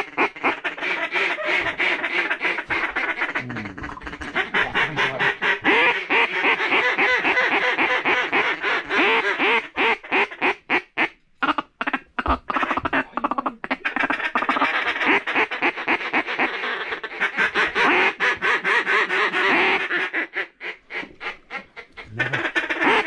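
Rapid, continuous duck quacking and chatter in long runs of many quacks a second, with two short breaks.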